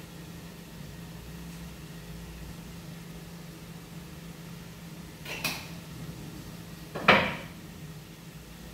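Kitchen clatter at the stove: two sharp knocks of cookware or utensils, about five seconds in and again a second and a half later, the second louder, over a steady low hum.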